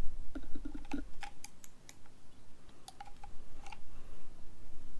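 Small scattered clicks and taps of plastic and rubber as gloved fingers seat a new O-ring on an Isuzu 4JJ1-TCX fuel filter bowl and handle the bowl. The clicks come in a quick cluster in the first second or so and again a few seconds in.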